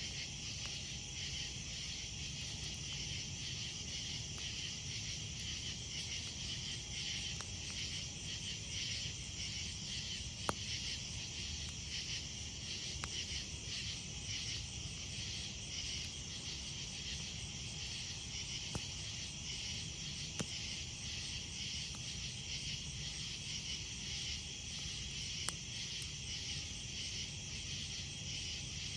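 Crickets and other insects chirping steadily in a fast pulsing rhythm, with a few sharp pops from a crackling campfire.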